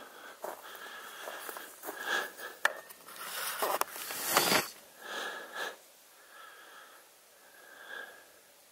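A person breathing hard and sniffing close to the microphone, each breath a soft rush of noise, with several louder rushes between about two and five seconds in.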